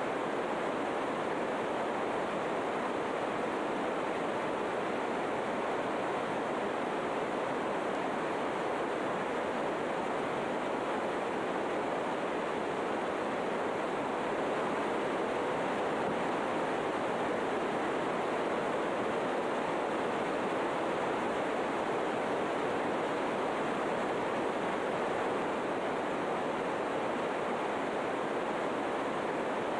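A steady, unchanging rushing noise with no distinct events in it.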